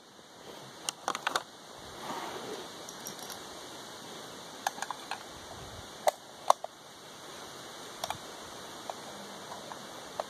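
Scattered sharp metallic clicks, some in quick pairs, a second or more apart, of rifle cartridges being handled and pressed into a rifle magazine.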